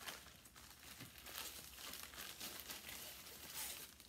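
White plastic mailer envelope crinkling and rustling as it is handled and opened and its contents are pulled out, loudest shortly before the end.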